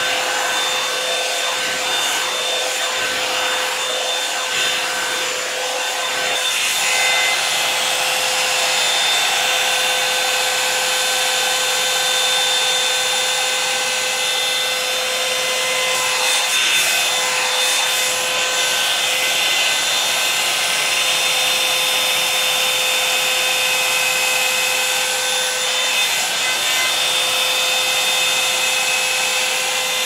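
Revlon One-Step hot-air brush dryer running on the cool-shot setting: a steady rush of air with a steady motor whine, its bristles rubbing through the hair as it is brushed.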